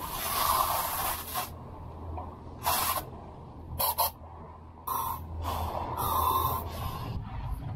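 Compressed air hissing from a SMACO mini scuba tank's regulator as it is purged and breathed through: one long hiss of over a second, then several short ones. A low steady hum runs underneath.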